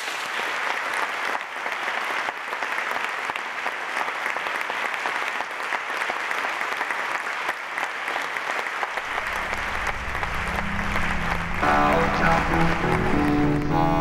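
Audience applauding steadily. About nine seconds in, a low droning music comes in under the clapping, and a pitched melody joins near the end as the outro jingle begins.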